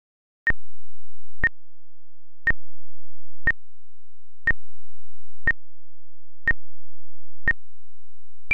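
Film-leader countdown sound effect: a short, sharp high beep once a second, eight times, over a faint low hum.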